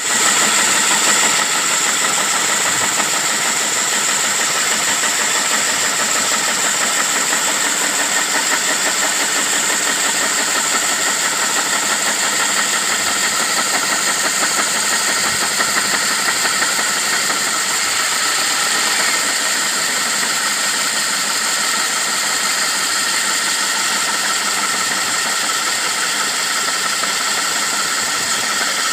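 Electric diamond core drill on a stand running steadily with its 12-inch wet core bit cutting into concrete: a steady high-pitched motor whine over a continuous grinding hiss.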